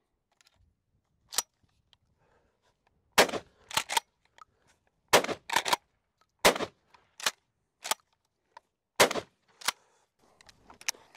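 Rock Island All Gen 12 pump-action 12-gauge shotgun firing four shots of low-brass 7.5 birdshot, a second and a half to two and a half seconds apart, with the clack of the pump being racked after each shot.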